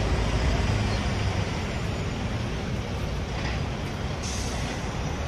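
Street traffic: a steady low engine rumble under road noise, with a higher hiss joining about four seconds in.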